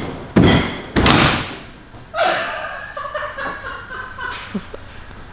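Two heavy slams about half a second apart, each dying away. About two seconds in comes a fainter sound with several wavering pitches, then a few light knocks.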